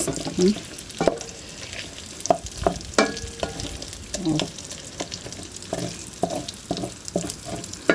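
A utensil stirring and scraping in a pan of leftover fried meat, with irregular knocks against the pan over a steady sizzle of frying in a little oil.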